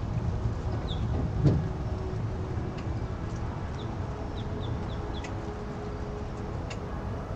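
Low steady rumble of the pickup truck and boat trailer backing down the launch ramp. Short high bird chirps come and go, and there is one sharp knock about a second and a half in.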